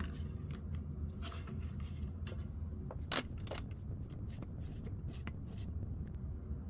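Rustling, scraping and clicking of insulation being stripped off copper cable by hand, with two sharper clicks about three seconds in, over a steady low hum.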